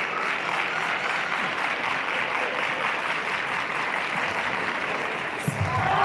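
Arena crowd clapping and cheering steadily, with a brief thud near the end.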